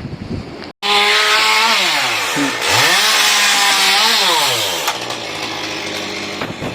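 Tree-removal power equipment's petrol engine running hard, starting abruptly just under a second in; its pitch sags twice as it takes load, then recovers each time.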